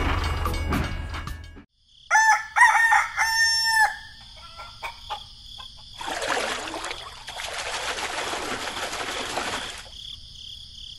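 An engine-like running noise cuts off, then a rooster crows and hens cluck for about two seconds. A few seconds later a rushing noise runs for about four seconds over steady high-pitched tones.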